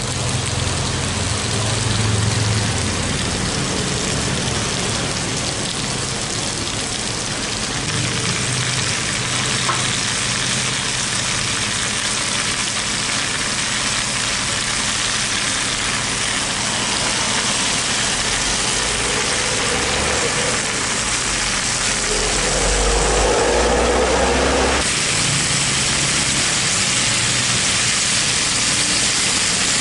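Tilapia and eggplant frying in oil in a pan: a steady sizzling hiss, with a low rumble underneath. Near the end it swells for a couple of seconds, then cuts back suddenly.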